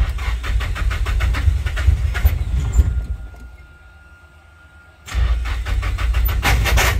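Nissan SR20DET four-cylinder turbo engine being cranked on the starter in two bursts with a pause between, the compression pulses coming in a quick even rhythm. It is trying to start on a newly installed Megasquirt ECU, and it does not keep running after either burst.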